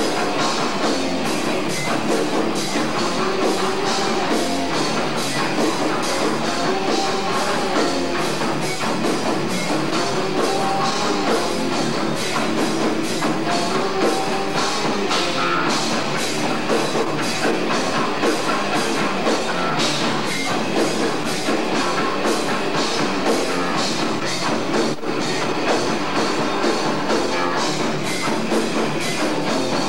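Rock band playing live: electric guitars and a drum kit going at a fast, steady beat, picked up by a camcorder's microphone.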